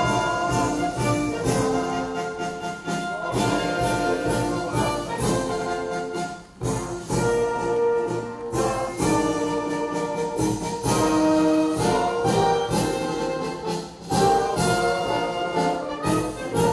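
Orchestral music with prominent brass and repeated drum strokes, played over a public-address loudspeaker.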